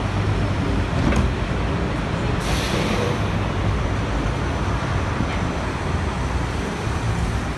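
Busy street traffic: a steady low rumble of buses and cars right beside the pavement, with a short burst of hiss about two and a half seconds in.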